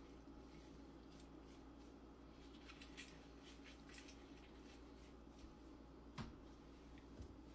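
Faint wet squishing and rubbing of a lime half being scrubbed over raw skinless chicken drumsticks by a gloved hand, with a few soft ticks and one sharper click about six seconds in, over a steady low hum.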